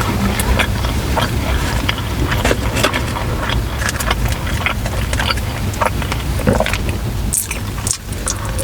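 Close-up eating sounds, with chewing and many small sharp crunches and clicks, over a steady low rumble of a car interior.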